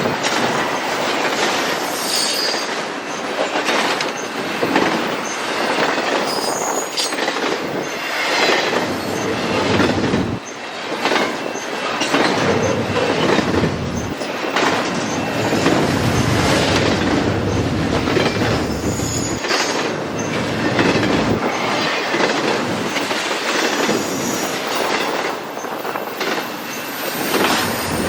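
Railway cars rolling past close by, wheels clattering over the rail joints in a steady run, with a few brief high-pitched wheel squeals.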